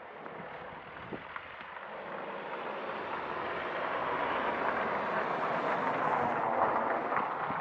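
A motor vehicle's rushing road noise swells steadily over several seconds as it approaches, then holds loud. A couple of faint clicks sound early on.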